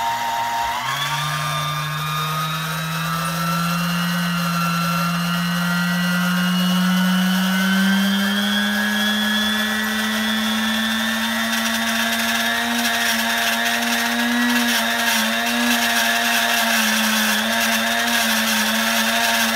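Vintage Sunbeam Mixmaster stand mixer's electric motor running. Its pitch steps up as the speed is turned up about a second in, climbs slowly, steps up again near eight seconds, then wavers. It does not sound very good at all: a rough, unhealthy-sounding motor.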